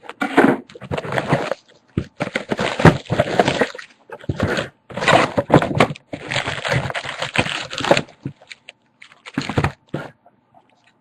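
Plastic packaging crinkling and tearing in irregular bursts as a sealed box of trading cards is opened. It dies down about eight seconds in.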